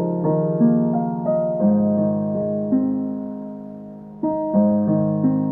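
Soft solo piano background music: slow notes that ring and fade, with a brief lull before new notes come in about four seconds in.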